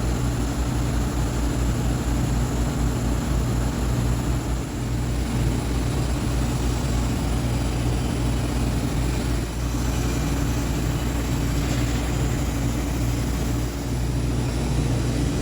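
AC TIG welding arc on aluminum: a steady electrical buzz with a hissing, crackling edge, held without a break.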